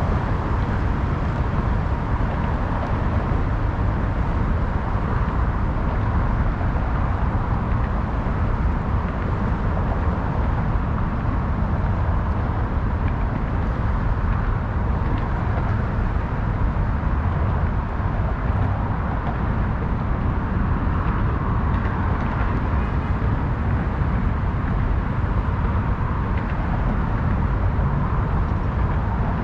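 Steady city traffic noise along the waterfront, an even, unbroken wash that is heaviest in the low end.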